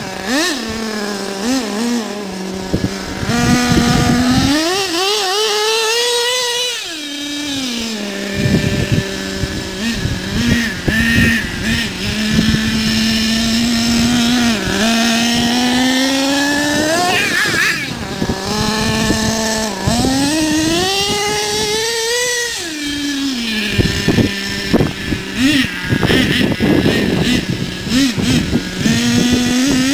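HPI Savage 4.6 SS nitro RC monster truck's small two-stroke glow engine, a high buzzing note that revs up in rising whines several times and drops back to a steady idle in between.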